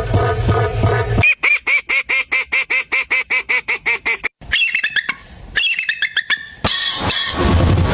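Animal calls in quick succession that change abruptly: first a low repeating call, then a fast run of about six or seven identical honk-like calls a second, then a few short groups of higher calls.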